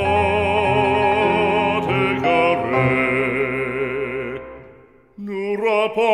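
Background music: a solo operatic voice singing a slow French hymn with vibrato over a soft accompaniment. The sound fades away about four and a half seconds in, and a new phrase begins near the end.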